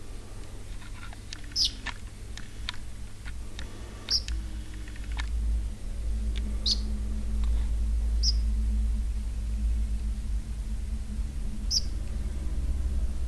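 House sparrow giving single short, high chirps, five of them a few seconds apart, with some faint clicks in the first few seconds. Under them runs a steady low rumble that grows louder about halfway through.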